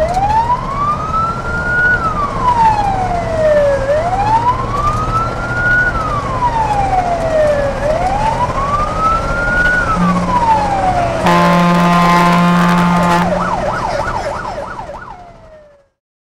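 Fire truck siren sounding: three slow rising-and-falling wails, then a steady horn blast for about two seconds, then a quick fast yelp before it fades out.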